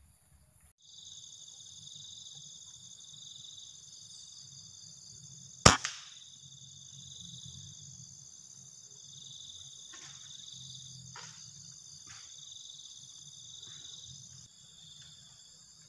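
A single sharp air rifle shot about six seconds in, over steady high-pitched insect chirring; a few faint clicks follow later.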